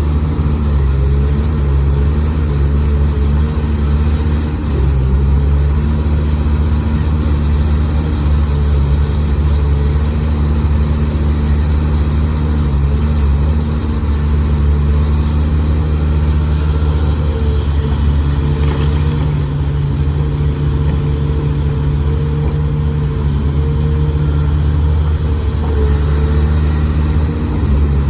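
Heavy diesel engine of construction machinery running steadily at working speed, its pitch shifting slightly from time to time.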